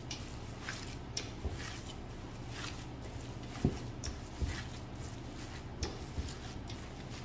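Gloved hands kneading minced meat for sausage in a stainless steel bowl: soft squishing with scattered light taps against the bowl, one sharper knock about halfway through, over a steady low hum.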